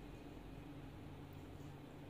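Quiet room tone: a faint steady low hum under light hiss, with no distinct sounds.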